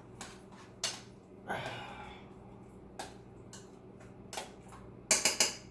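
A spoon stirring mashed sweet potatoes, knocking and scraping against the dish now and then, with a quick run of loud clinks just after five seconds.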